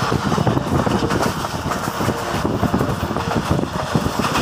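Passenger train running along the track, heard from inside a coach: a steady rumble with wheels rattling and clattering irregularly.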